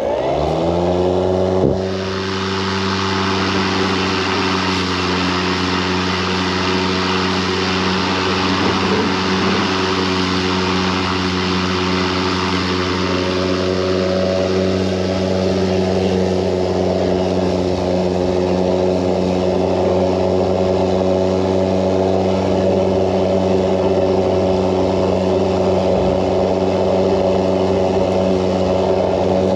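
EGO Power+ LM2125SP 21-inch 56 V battery self-propelled lawn mower's blade motor winding up in the first couple of seconds, then running steadily with a steady hum and a hiss of air and grass under the deck.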